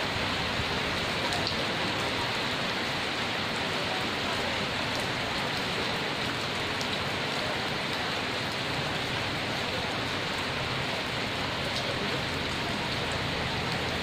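Heavy rain falling steadily on a leafy tree: a dense, even hiss with a few faint drop ticks scattered through it.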